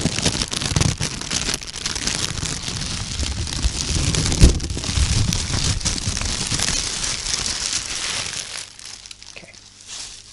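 White tissue paper crumpled and rustled by hand close to the microphone, a dense crinkling full of small crackles with one sharper crack about halfway through. It tails off to quieter rustling in the last couple of seconds.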